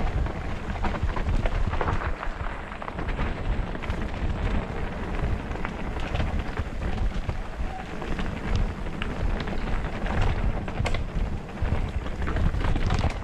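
Wind buffeting a moving camera microphone with the rumble and rattle of a mountain bike ridden over a rough dirt trail, with scattered sharp clicks and knocks throughout.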